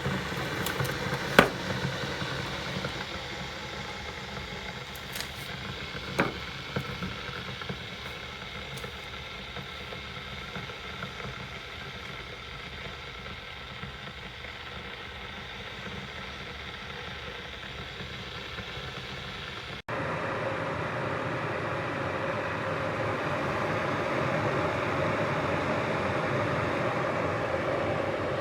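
Proctor Silex 1000-watt electric kettle heating water, a steady rushing rumble as the water works toward the boil. Two sharp clicks come in the first few seconds. About two-thirds of the way through, the sound cuts to a louder, rougher rushing.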